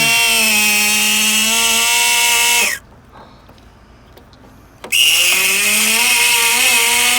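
Vintage 12-volt spark plug cleaner running, its small electric motor whining over a hiss of sand blasting the spark plug. It cuts off a little under three seconds in, then starts again about two seconds later, its pitch rising as it spins up.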